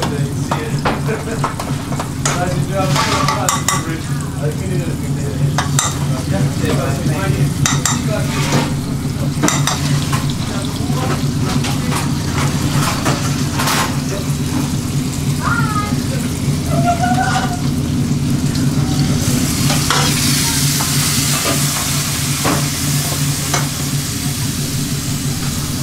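Curries sizzling in pans over high gas flames, with a spoon stirring and tapping against the metal pans over a steady low drone from the range and extraction hood. About three-quarters of the way through the sizzling gets louder and hissier.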